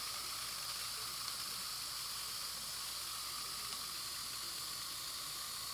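A steady, faint hiss, consistent with dental suction running in the operatory during brace bonding prep.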